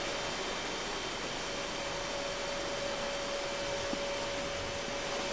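Steady background hiss with a faint, constant whine at one pitch; nothing else happens.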